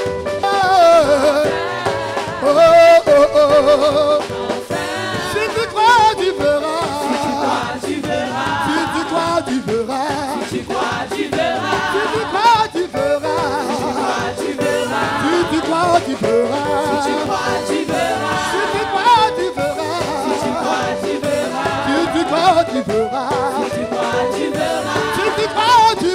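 Gospel praise music: several voices singing a worship song over held, sustained notes.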